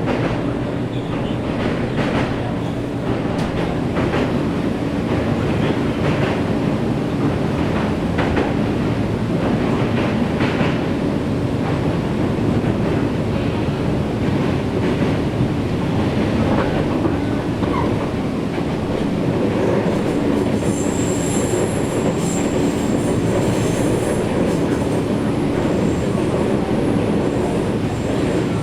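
Nankai 7100-series electric train running, heard from inside the car: steady rumble and hum with rail-joint clicks in the first half, then a high-pitched wheel squeal joining about two-thirds of the way through.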